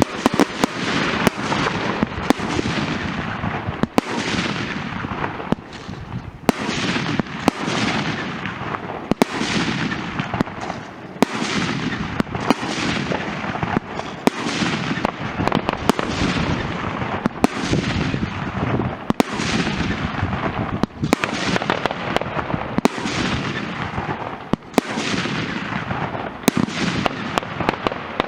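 Fireworks going off in a rapid, steady series, about one sharp bang a second, each followed by a fading crackling hiss.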